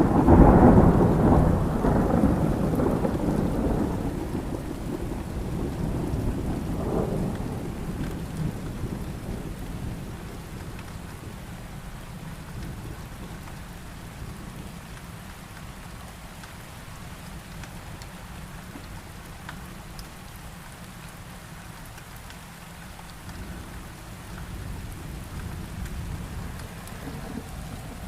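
A loud clap of thunder right at the start, rumbling and fading over about ten seconds, over steady heavy rain; a fainter roll of thunder swells near the end.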